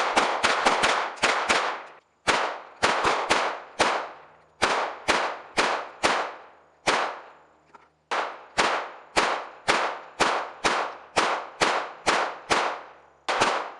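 Gunfire: quick strings of shots, two to four a second, broken by short pauses, the longest about seven seconds in. Each shot trails off in a brief echo.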